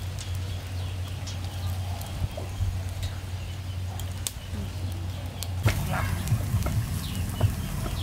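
Bamboo skewers of chicken wings clicking and knocking against a wire-mesh grill over charcoal as they are turned by hand, in scattered sharp clicks over a steady low hum. About two-thirds in, the clicks come thicker and louder.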